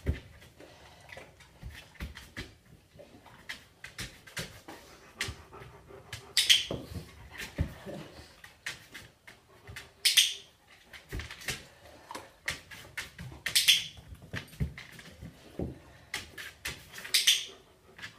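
Large long-haired black dog moving about on a tile floor: scattered nail clicks and soft knocks, a faint whine at times, and four short hissing puffs a few seconds apart.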